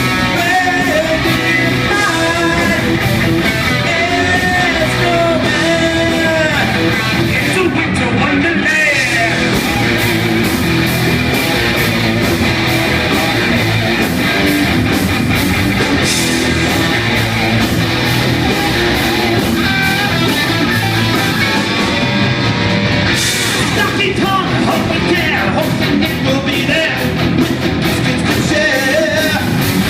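Heavy metal band playing live at full volume, with distorted electric guitars over bass and drums.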